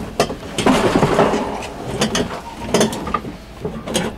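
Old Dometic two-way RV refrigerator being wrestled out of its cabinet: its sheet-metal casing knocking and scraping against the opening in a run of irregular clunks, with a longer scrape about a second in.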